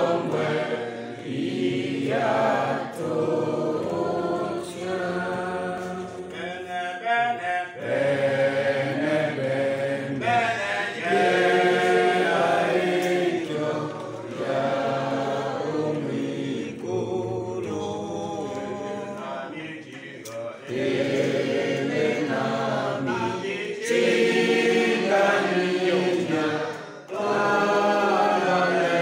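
A group of voices singing a hymn together in phrases, with short breaks between them.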